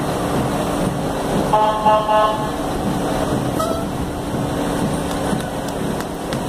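Mack fire engine rolling slowly past with its engine running, and a horn blast about a second and a half in that lasts about a second.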